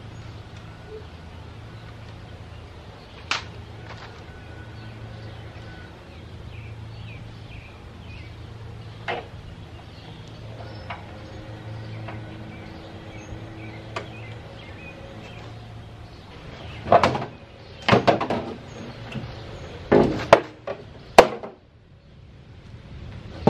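Scattered light clicks, then a burst of loud knocks and clunks about three-quarters of the way in as the long plastic cover panel of a panoramic dental X-ray machine is lifted and moved against the machine. A steady low hum runs underneath until the knocks begin.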